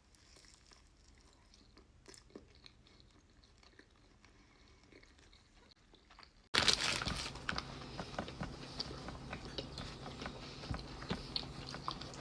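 A person chewing and biting food close to the microphone, with crunches and small wet mouth clicks. Faint at first, it becomes much louder about six and a half seconds in.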